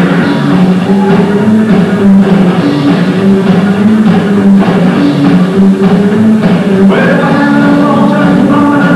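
Rockabilly band playing live: electric guitar and drum kit over steady low notes, with higher notes coming in about seven seconds in.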